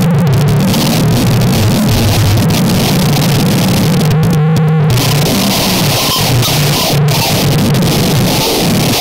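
Harsh noise music: a loud, dense wall of distorted noise over a buzzing low drone. About halfway through it briefly thins to a filtered, warbling patch with the highs gone, then returns with a bright hiss on top.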